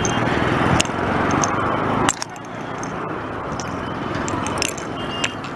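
Wind and road noise rushing over a handlebar-mounted camera on a moving bicycle, with a few sharp clicks and rattles from the bike, the loudest about two seconds in.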